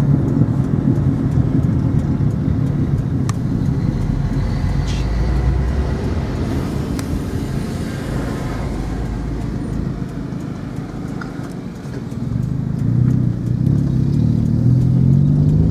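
Car engine and road noise heard from inside a moving car. The engine note drops off about twelve seconds in, then climbs again as the car accelerates.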